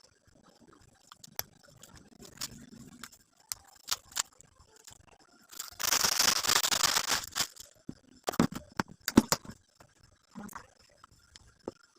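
Gift packaging being unwrapped by hand: scattered light taps and clicks, a loud tearing and crinkling of wrapping for about two seconds about halfway through, then a few sharp knocks as the box and its contents are handled.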